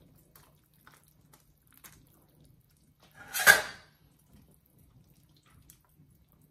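Pieces of corn on the cob dropped into a stockpot of boiling broth, with one loud splash about halfway through and a few faint knocks around it.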